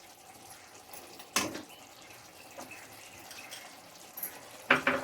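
Egg and tomato curry simmering in the pan, faint bubbling and popping, with two short, louder knocks: one about a second and a half in and one near the end.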